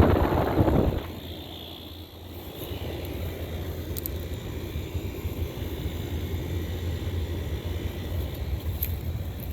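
Outdoor central air-conditioner condenser unit running: a steady low hum with the rush of its fan. The air rush is louder for about the first second, then settles to a steady level.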